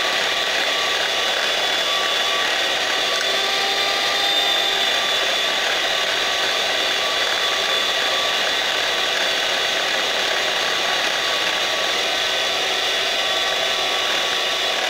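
Panasonic electric hand mixer running steadily, its beaters whipping instant coffee, sugar and a little hot water in a glass bowl as the mixture turns pale and frothy.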